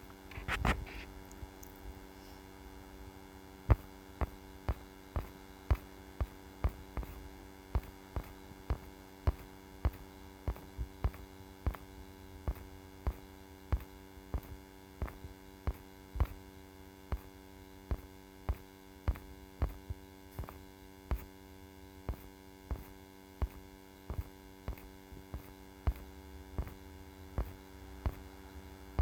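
A computer mouse clicking repeatedly, irregularly about once or twice a second, over a steady electrical hum.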